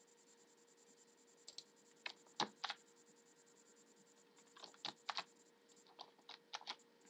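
Computer keys being pressed: about a dozen faint, sharp clicks in small irregular groups, the sound of someone working the keyboard to stop a slide presentation.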